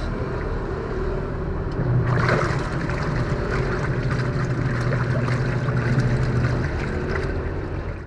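Top-loading washing machine on its wash cycle: the wash motor hums steadily as the pulsator churns the water in the tub, with water swishing. The motor's hum stops near the end.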